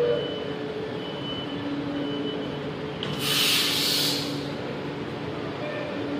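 Chennai Metro train standing at the platform, with a short warning beep repeating about once a second as its doors close. About three seconds in comes a loud hiss of air lasting about a second, over a steady low hum.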